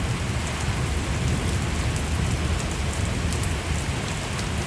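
Steady rain falling in a thunderstorm, with faint drop ticks and a low, fluttering rumble of wind buffeting the microphone.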